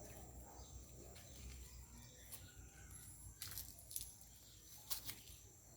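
Male tortoise mounting a female: several faint, short, sharp clacks spread over a few seconds.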